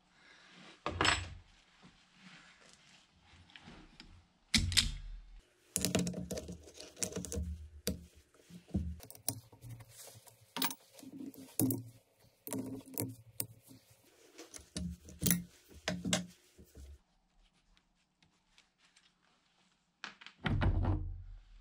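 Metal clicks, clinks and knocks from a hand tool and a three-jaw chuck as the chuck is unfastened and worked off a mini lathe's spindle. There is a pause near the end, then one heavier thump just before it ends.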